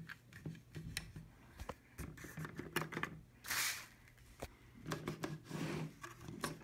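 Light clicks and clatters of plastic HO-scale model train cars being handled on a table, with a brushing rustle a few seconds in and another near the end, over a faint steady low hum.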